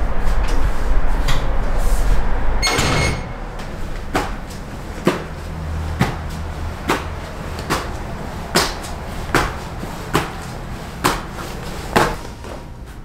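A low hum, cut off about three seconds in by a door-like clatter with a brief ringing tone. Then slow, even footsteps on a hard floor, about one a second.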